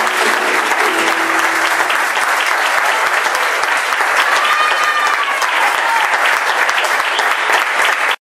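Audience applauding, a dense crackle of many hands clapping, with a few voices calling out among it; the sound cuts off suddenly near the end.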